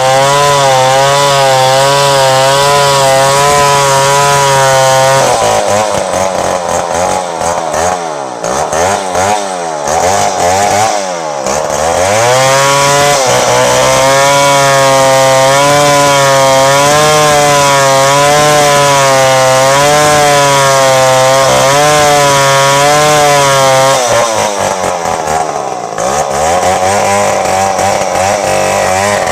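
Two-stroke chainsaw running at high revs while cutting ulin (ironwood) timber, its pitch wavering as the chain works through the wood. Twice, from about 5 to 13 seconds and again near 24 to 27 seconds, the engine revs fall away and climb back up.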